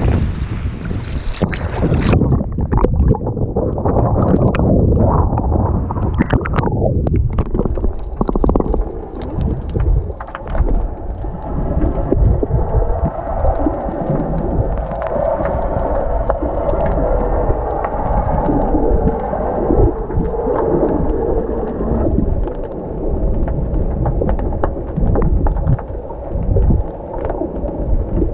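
Sea water sloshing and splashing over the microphone at the surface, then, about ten seconds in, the dull, muffled rumble and gurgle of water heard from underwater.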